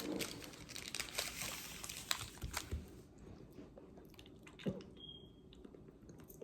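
Close-up chewing and crunching of fried food: busiest in the first three seconds, then softer.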